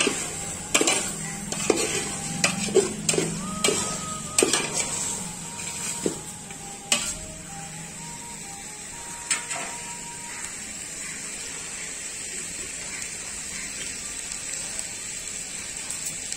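Steel pot and ladle clinking and scraping in quick, irregular knocks as biryani rice is tipped into a pot of boiling water and stirred. After about seven seconds the knocks stop and a steady hiss of cooking on the stove remains.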